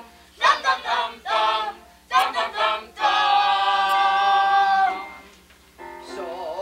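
Group of voices singing together: a few short sung syllables, then one long held note from about three seconds in that dies away, and softer singing starting again near the end.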